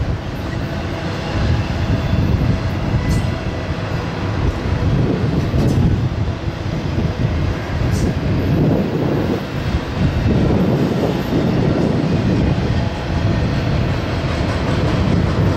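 Double-stack freight train's cars rolling past with a steady rumble of steel wheels on rail, broken by a few faint clicks.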